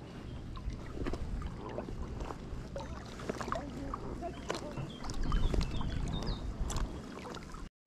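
Small waves lapping and splashing against the float tube's inflated hull, with wind buffeting the microphone.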